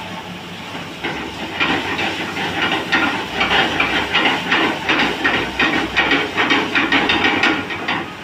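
Food sizzling in hot oil in a pan. The sizzle swells about a second in, crackles and pulses unevenly, then fades near the end.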